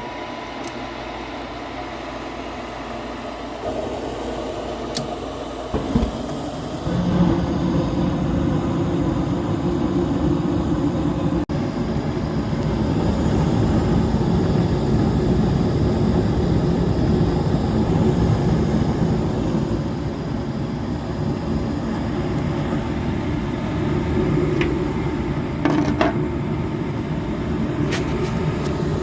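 Luxaire gas furnace starting up with its new draft inducer motor running. About six seconds in there is a thump, and a louder, steady rushing begins as the burners light and the furnace settles into running; faint clicks come near the end.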